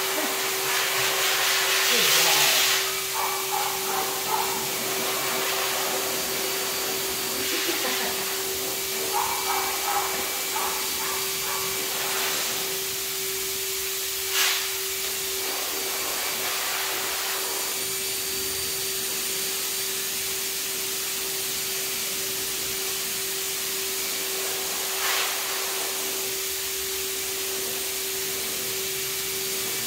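A running machine's steady hum with an even hiss, with a louder rush of noise about two seconds in and two sharp knocks later on.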